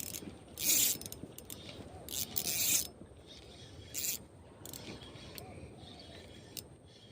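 A fishing reel being cranked in three short spells, a scratchy ratcheting sound.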